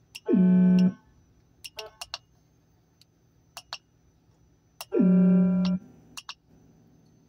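Whelen Howler low-frequency siren giving two short blasts about four seconds apart, each dropping quickly in pitch and then holding a low steady tone. Siren keypad buttons click between the blasts.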